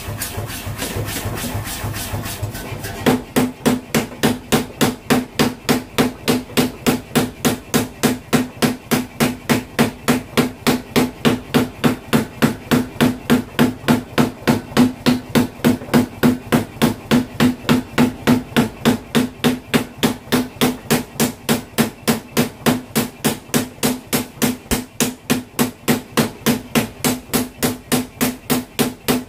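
Power hammer striking a red-hot ball-bearing-steel knife blade on its anvil in a fast, steady rhythm of about three blows a second, each with a short ringing clang. The blows are lighter and quieter for the first three seconds, then hit hard.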